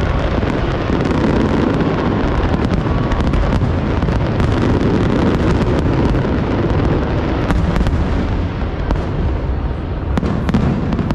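Aerial fireworks going off in a dense, continuous barrage. Shell bursts and crackles overlap with no gaps between them.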